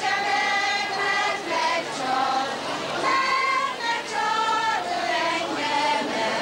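Several women's voices singing a folk song together in high notes that are held and slide between pitches, each phrase breaking off and starting again about every second or so.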